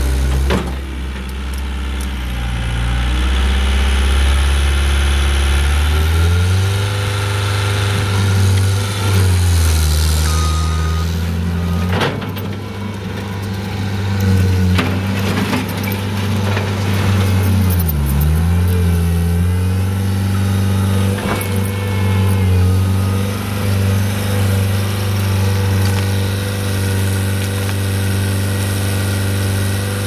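John Deere 323D compact track loader's diesel engine running hard, its pitch rising and falling as the machine drives on its tracks and works the loader arms and bucket, with a few metallic knocks and one short backup-alarm beep about ten seconds in.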